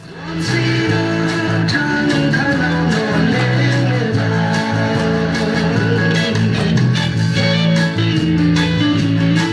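Instrumental music with guitar, fading in over the first half second and then holding a steady level.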